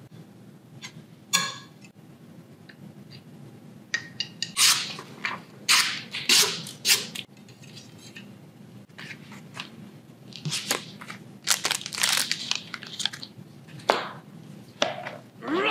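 Handling noises of a boning knife and its packaging: the stainless blade scrapes and clicks as it slides into a plastic blade guard, then the cardboard gift box and its insert rustle and knock as the knife is laid back in.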